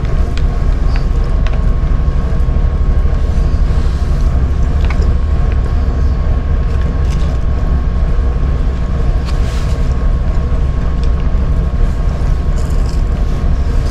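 Steady low rumble of the car ferry Sunflower Cobalt's engines and hull vibration, heard inside a passenger cabin, with a steady higher hum over it. A few light clicks of chopsticks against a plastic food tray.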